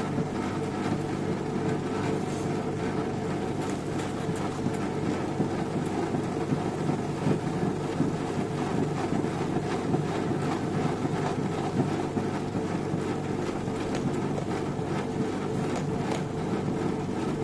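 Butterfly electric wet grinder running steadily, its motor humming and its stone rollers rumbling as they grind garelu batter, with faint scattered clicks.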